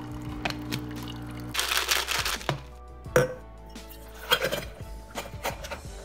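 Background music over kitchen handling sounds: a plastic shaker cup knocked and clinked on a counter, a sharp knock about three seconds in, and a drink poured from the cup into a stainless steel tumbler near the end.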